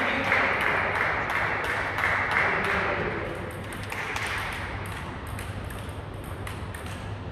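Table tennis ball bouncing between points, over the general noise of a sports hall.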